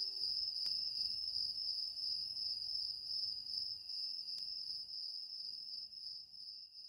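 Crickets chirring in a steady high-pitched chorus, with two faint clicks, fading out near the end.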